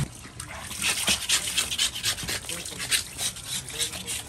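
A knife scraping a mutton trotter clean, in quick, uneven strokes, several a second.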